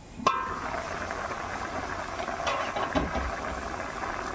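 A single metallic clink with a short ring about a quarter second in, then the steady rattling bubble of a pot of pork and water simmering over medium heat.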